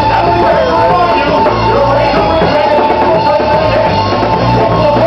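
Loud rock music.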